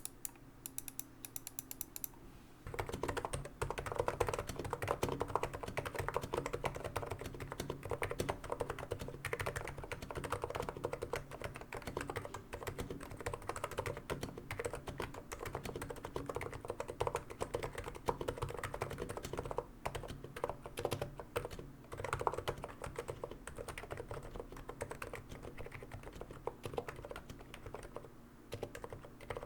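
Typing on a Niz Plum X87 keyboard with 35 g electro-capacitive rubber-dome switches: a fast, steady run of quiet, deep-sounding keystrokes that starts about two and a half seconds in, with a few short pauses.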